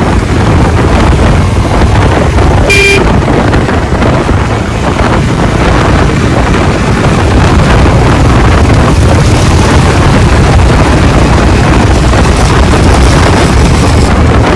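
Wind buffeting the microphone on a motorcycle at road speed, with the engine running underneath. A single short vehicle horn toot sounds about three seconds in.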